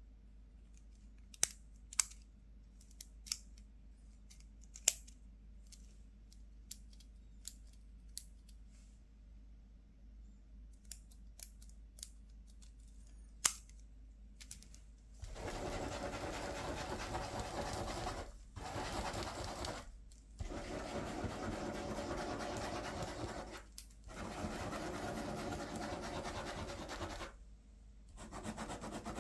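A few sharp clicks from a multi-colour retractable ballpoint pen being handled. About fifteen seconds in, a ballpoint pen starts scribbling loops on paper over a clipboard: a steady scratchy rubbing with several brief pauses.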